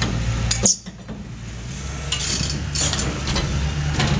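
Indeco ISS 10/20 hydraulic steel shear on an excavator cutting the rusted steel wall of a tank: metal clinks and snaps over the machine's steady engine hum. A sharp crack comes under a second in, then the hum briefly drops away before returning.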